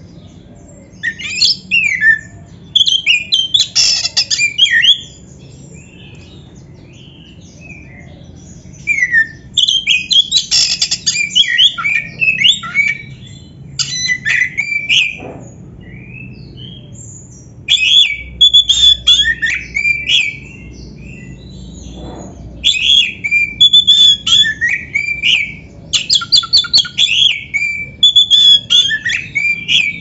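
Oriental magpie-robin (kacer) singing: about six loud bouts of a few seconds each of quick, varied whistles, trills and chirps, with short pauses between them.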